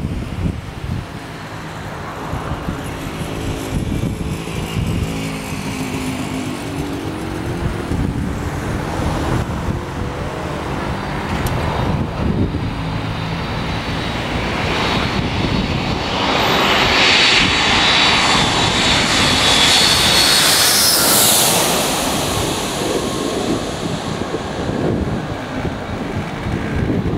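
Jet airliner on final approach passing low overhead. Its engine noise builds with a high whine from the engines, peaks about two-thirds of the way in, then falls away as the plane heads down to the runway.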